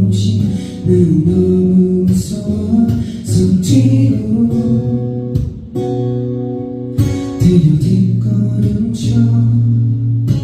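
A solo singer's voice over a strummed acoustic guitar, playing a song.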